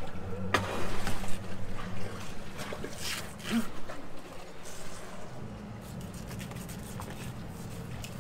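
A fillet knife cutting and scraping through a blackfin tuna on a cleaning table, with wet handling sounds that come mostly in the first few seconds. A steady low hum runs underneath.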